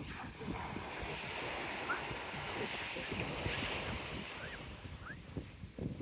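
Small Gulf surf washing up the sand at the water's edge, a steady hiss that swells in the middle, with wind gusting on the microphone.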